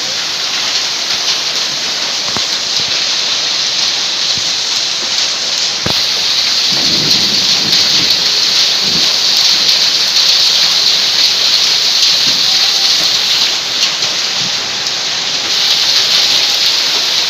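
Hail and heavy rain pelting down: a dense, steady hiss with scattered sharp clicks of hailstones striking, swelling a little about six seconds in.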